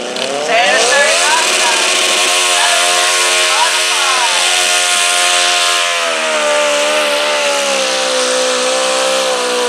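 Modified garden pulling tractor's engine revving up hard about half a second in, then running flat out at a high, steady pitch under load as it pulls the sled. Its pitch sags slightly about six seconds in.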